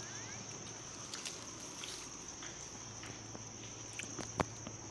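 Insects singing in a steady high-pitched drone, with scattered light clicks and rustles and one sharper click near the end.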